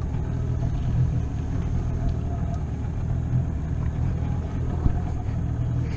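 Boat's outboard motor running steadily while under way, a steady low drone.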